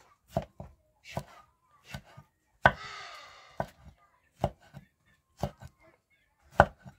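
A knife chopping vegetables on a hard surface: single sharp knocks at an uneven pace of about one a second, with a short rustling noise about three seconds in.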